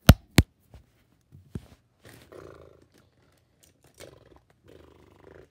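Two sharp, very loud taps right at the phone's microphone at the start, then a few faint, short low vocal sounds.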